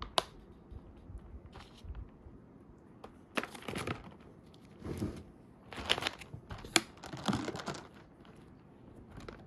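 Plastic packaging being handled: a sharp click just after the start, then irregular bursts of crinkling and rustling.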